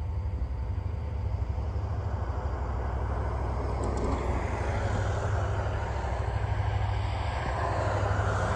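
A car driving past on the road, its tyre and engine noise swelling to loudest near the end, over a steady low rumble.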